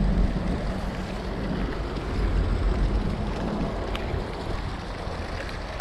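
Steady low rumble of wind buffeting the microphone, with rain falling on canal water.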